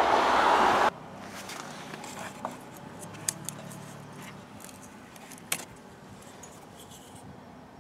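Small plastic clicks and light rattles of a halogen headlight bulb and its wiring plug being handled, with a sharper click about five and a half seconds in as the bulb comes off its plug. A steady rush of noise fills the first second and cuts off suddenly.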